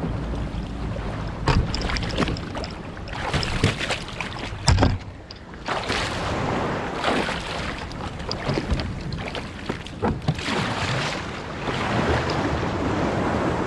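Surf washing and water splashing around a kayak being paddled out through the shore break, in uneven surges, with wind noise on the microphone and a few sharp knocks against the hull.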